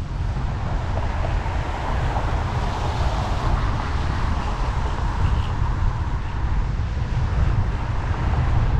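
Wind buffeting the microphone of a moving bicycle rider, a steady low rumble, over an even hiss of road and traffic noise that swells slightly a second or two in.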